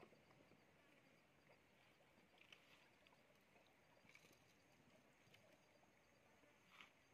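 Near silence: a faint outdoor background with a few soft, scattered ticks.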